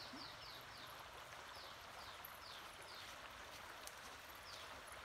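Faint steady rush of a stream, with a small bird giving a series of short high chirps, each falling in pitch, some in quick runs and some a second or so apart.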